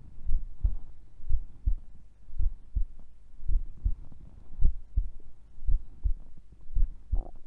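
Heartbeat of a sleeping woman: slow, steady pairs of deep thumps about once a second. Near the end a short stomach gurgle joins in.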